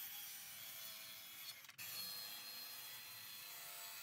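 Cordless circular saw cutting through a small block of wood, heard faintly as a steady whine, with a brief gap a little under two seconds in.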